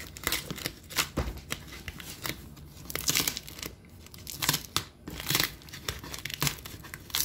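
Clear plastic packing tape being picked at and peeled by hand from the edge of a cardboard box, in short irregular rips and crinkles.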